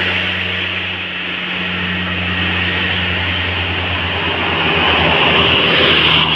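Tour bus's diesel engine running with a steady low hum, under a hiss of road and traffic noise.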